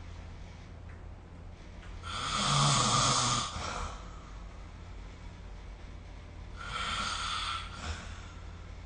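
A sleeping person snoring: two snores about four seconds apart, the second softer, over a steady low hum.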